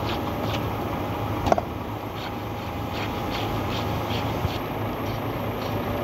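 Steady engine rumble of site machinery, with repeated soft strokes of a steel tamping rod being worked into fresh concrete in a cylindrical test mould, two or three a second. A single sharp click about a second and a half in.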